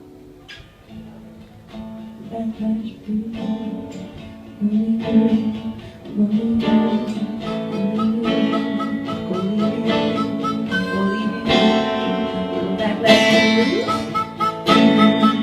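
Acoustic guitar playing a blues instrumental passage between sung lines, with picked notes that start sparse and quiet and build into fuller, louder playing from about halfway through.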